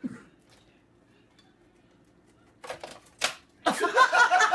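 Quiet at first, then two sharp clicks a little over half a second apart. About three and a half seconds in, a high-pitched voice starts, rising and falling rapidly in pitch, and it is the loudest sound.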